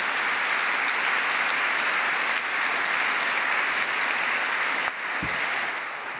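Audience applauding: steady clapping from a crowd that eases off a little about five seconds in.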